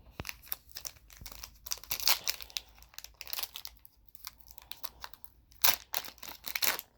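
Crinkling and tearing of a trading-card pack's plastic wrapper as it is torn open and crumpled by hand, in a run of irregular sharp crackles with louder bursts about two seconds in and shortly before six seconds.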